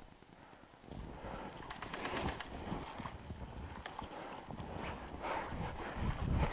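Footsteps crunching in snow, a steady walking rhythm that starts about a second in.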